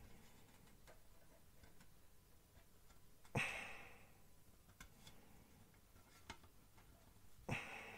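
Plastic model-kit wing halves being pressed together by hand to seat the locating pins: faint small clicks and rubs of the styrene parts, with two louder sharp clicks about three and a half and seven and a half seconds in.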